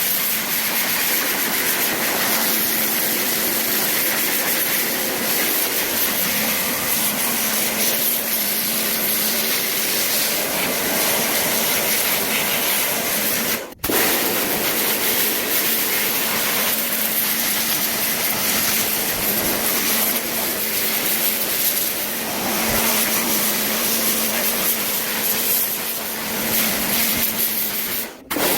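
Steady hissing rush, broken by two brief cut-outs.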